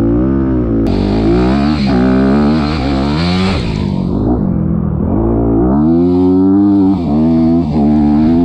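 Honda CRF250R's single-cylinder four-stroke engine under the rider, revving hard with its pitch climbing and falling as the throttle opens and the gears change, with two brief dips near the end.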